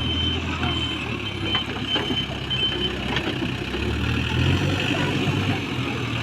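JCB backhoe loader's diesel engine running steadily, working harder about four seconds in, with a few sharp clunks. A reversing alarm beeps repeatedly through the first half.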